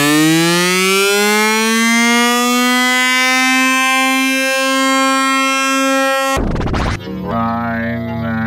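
Electronic tone that glides up in pitch over the first two seconds, then holds steady. It is cut off about six seconds in by a short burst of noise, and a wavering pitched sound follows.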